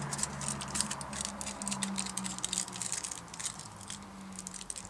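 Aluminum foil crinkling and crackling in irregular little bursts as fingers pinch and fold it closed around the end of a small foil match rocket, over a steady low hum.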